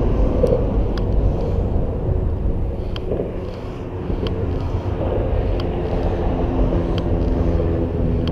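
Steady rumble of highway traffic on the overpasses, with a vehicle's engine tone coming in over the second half.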